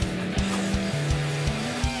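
Background music: guitar over held bass notes with a steady beat.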